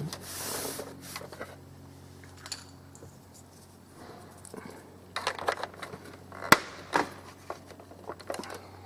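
Hard plastic pieces of a Bruder bWorld toy shed being handled and snapped into place: rubbing at first, then a cluster of sharp clicks and knocks from about five seconds in, the loudest about six and a half seconds in, as small bracing pieces clip into the roof corners. A faint steady hum lies underneath.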